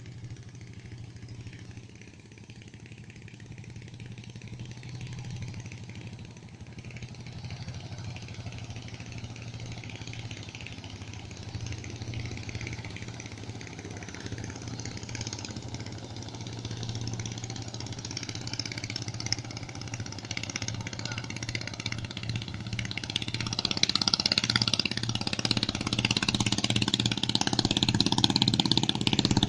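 Small wooden river boat's engine running steadily, growing louder as the boat comes closer; it is loudest and rougher in the last few seconds.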